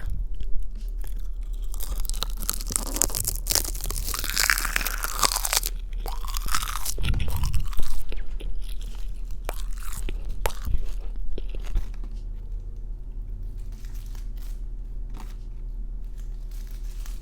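Close-miked crunchy chewing and biting of food: dense, crackly crunches for about the first twelve seconds, then thinning to quieter, scattered clicks.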